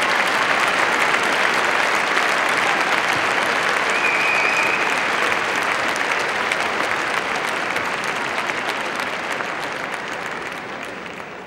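Large arena crowd applauding, the clapping dense at first and then dying away over the last few seconds. A short high whistle sounds about four seconds in.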